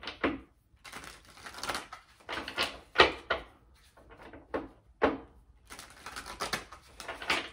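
A tarot deck shuffled by hand: an irregular run of papery swishes and slaps of cards, the sharpest about three seconds in.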